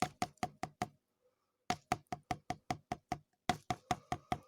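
A spoon clinking against the inside of a cup in quick, even strokes, about six a second, each clink ringing briefly, as turmeric is stirred into milk. The clinking stops for about half a second around one second in, then picks up again.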